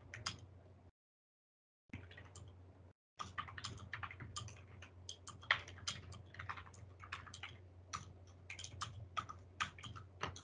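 Computer keyboard typing: faint, irregular key clicks over a low steady hum, heard through a video call's microphone. The sound cuts out completely for about a second near the start and again briefly around three seconds in.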